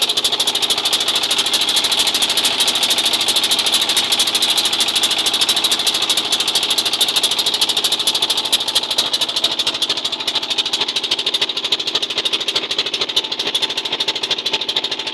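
Small fishing boat's engine running steadily, with a rapid, even firing rhythm.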